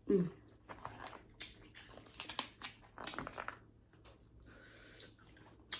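Snow crab shell being cracked and peeled by hand: a run of short crackles, snaps and crunches.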